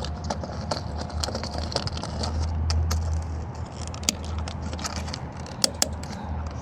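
A locking fuel cap is being tried on a vehicle's fuel filler neck: small plastic-and-metal clicks and scrapes, with a light jangle of keys. Two sharp clicks come near the end, over a steady low rumble.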